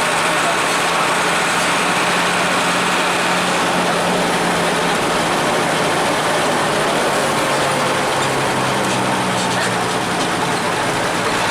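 Engine of a Hino AK-3 HR bus running steadily under way, a constant low drone over road noise, with a second, lower engine note coming in about halfway through.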